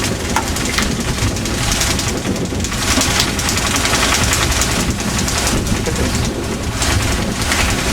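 Fishing boat's engine running steadily under a loud rush of wind and sea noise.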